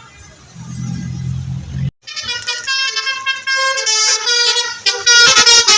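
Basuri telolet musical bus horn playing a tune of stepping notes, starting about two seconds in and loudest near the end. It follows a low engine rumble that cuts off abruptly.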